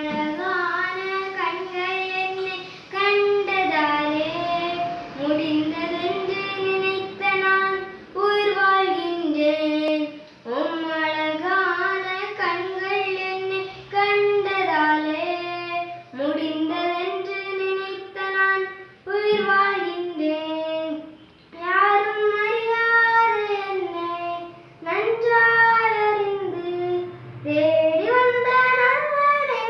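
A young girl singing a Tamil Eucharistic hymn solo and unaccompanied, in phrases of a few seconds with short breaks for breath.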